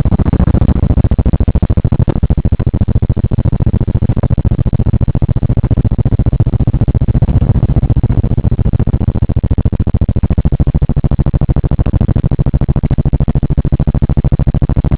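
Steady low rumble of a 1979 Oldsmobile on the move, heard from inside the cabin: engine and road noise with a fine, rapid pulsing.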